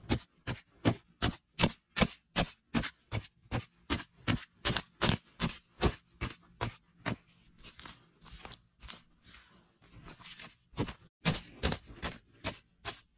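A narrow metal-bladed digging tool on a long wooden handle chopping into hard, dry clay soil, about three strikes a second, with loose clods crumbling and scraping between strikes in a softer stretch near the middle.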